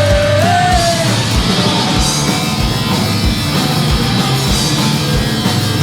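Live punk rock band playing an instrumental passage with a steady drum beat, a held sung note from the end of the chorus fading out in the first second.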